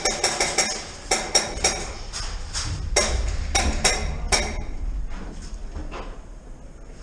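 Airsoft gunfire: strings of sharp snapping shots, about six a second, in two quick bursts in the first second and a half, then a few more shots around three to four seconds in, over a low rumble.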